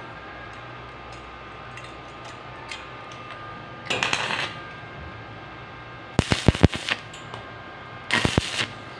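Stick arc welding on stainless steel handrail tubing: three short bursts of crackling, sputtering arc, each about half a second, about four, six and eight seconds in, tacking the freshly leveled post in place. The middle burst is the loudest and most sputtery.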